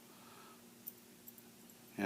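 Near silence: room tone with a faint steady hum and a few tiny, faint clicks.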